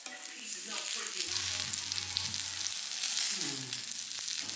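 Red bell pepper strips sizzling in a hot ridged grill pan, a steady hiss.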